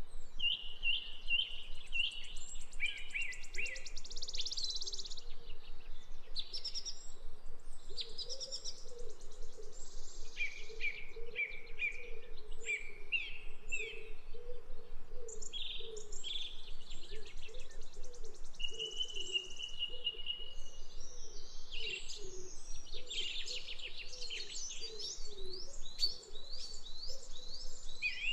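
Small birds chirping and twittering, with many short calls and trills overlapping throughout. A lower, wavering series of calls runs underneath from about four seconds in.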